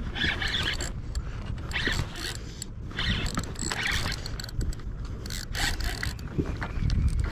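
Spinning reel being cranked against a hooked salmon, its gears whirring in repeated bursts about a second apart, over a low rumble.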